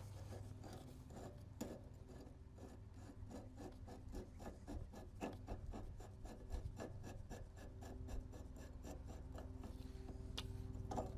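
Pliers working a fuel filter loose: a long run of short scraping clicks, several a second, as the jaws grip, slip and twist on the filter body, over a steady low hum.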